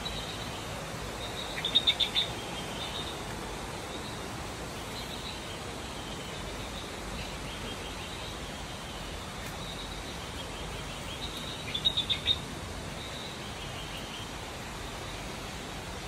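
Outdoor ambience of steady, even hiss with faint high chirps, broken twice by a louder burst of quick, high chirping calls from a small animal: once about two seconds in and again about ten seconds later.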